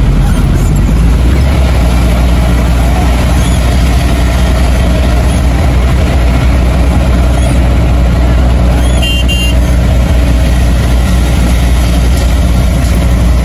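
Car driving along a road: a steady heavy low rumble of engine and road noise. About nine seconds in, a brief high double beep.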